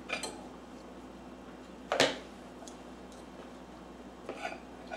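A toddler eating with a plastic fork: a few short soft clicks and taps, the loudest about two seconds in, with smaller ones near the end.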